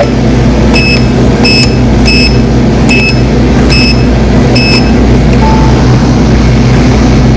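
ATM keypad beeping as a PIN is typed in: six short high beeps, each under a second apart, over a steady low hum.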